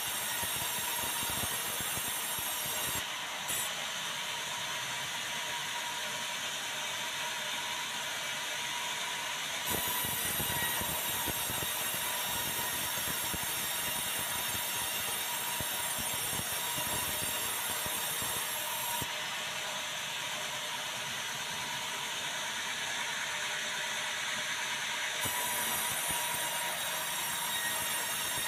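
Sawmill vertical band saw running steadily through white meranti timber, a continuous mechanical rush with steady high tones. Its hiss changes a few times as the feed and load shift.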